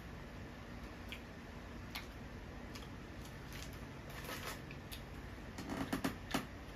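Close-up mouth sounds of chewing a Flamin' Hot Cheetos-crusted boudin ball: scattered soft crunches and clicks, with a louder cluster of crunches near the end.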